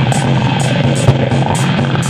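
Live electronic music from a modular synthesizer: a loud steady low drone with a dense layer of tones above it and short noisy high ticks repeating several times a second.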